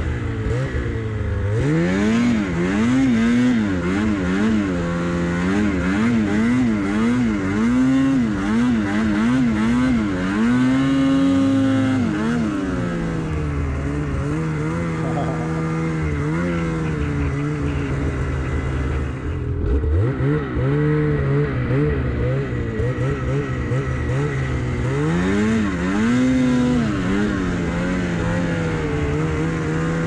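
Snowmobile engine running hard, its pitch rising and falling about once a second as the throttle works. It holds a steady high note for a moment, then drops sharply a little past the middle and climbs again.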